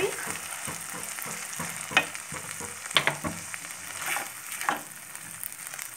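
Thick cashew, poppy seed and sesame paste being stirred into hot oily masala in a nonstick frying pan: a steady frying sizzle with scrapes of the spatula across the pan, sharpest about two and three seconds in.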